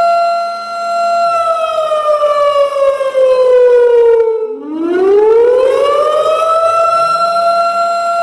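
Warning siren sound effect: one steady siren tone that slides slowly down in pitch from about a second in, cuts out briefly near the middle, then rises back up and holds steady again.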